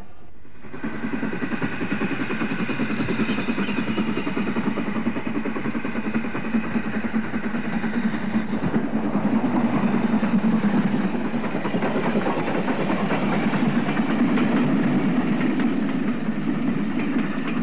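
Steam train passing: a steam locomotive and its coaches rolling by with a fast, even rhythm of the engine working and wheels on the rails. It grows louder to about ten seconds in and stays loud as the coaches go past.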